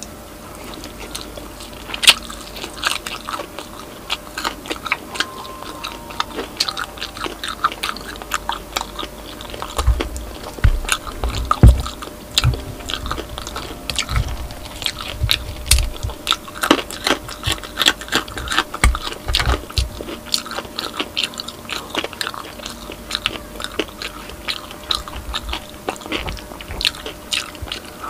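Close-miked chewing and crunching of crispy pata (deep-fried pork knuckle) with rice: a long run of sharp crunches and bites, with heavier low thuds around the middle.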